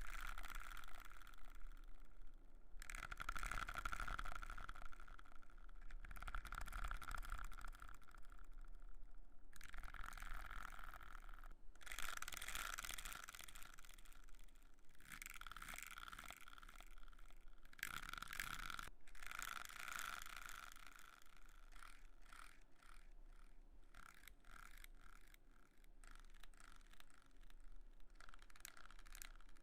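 Brush strokes across an ASMR microphone: soft scratchy brushing in bouts of two to three seconds, then quicker, shorter and fainter strokes in the last third.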